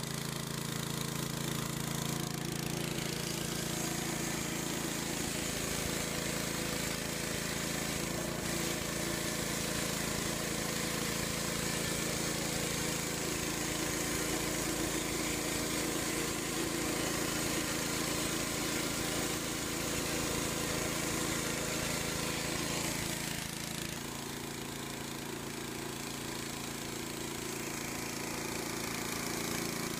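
The small gasoline engine of a Hud-son walk-along portable bandsaw mill running steadily while the band blade is fed slowly through a fir log. The sound changes slightly about three quarters of the way through, with less of the low engine tone.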